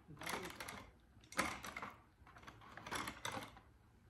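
Hands handling small Christmas-tree decorations: three short bursts of crackly rustling and clicking, about a second apart.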